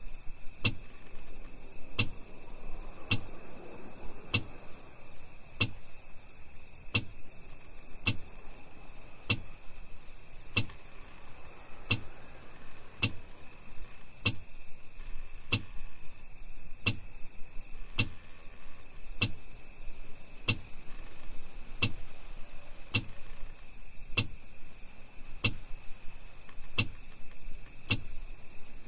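Vehicle hazard-light flasher clicking in a steady tick-tock rhythm, roughly three clicks every two seconds, alternating stronger and weaker, over a steady high-pitched chirr of night insects.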